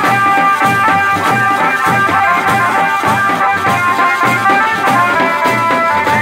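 Garhwali folk dance music playing loud, with a steady drum beat under a held, stepping melody line.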